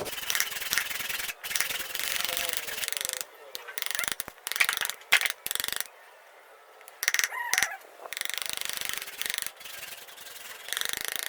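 A hand tool rubbing and scraping across wood in runs of strokes, stopping briefly now and then, with a longer pause a little past the middle.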